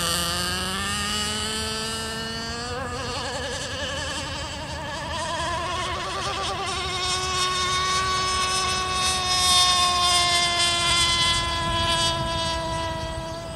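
CMB .91 two-stroke nitro engine of an RC outrigger racing boat running at high speed, a high-pitched whine. Its pitch climbs over the first several seconds as the boat speeds up, then holds steady with a slight waver.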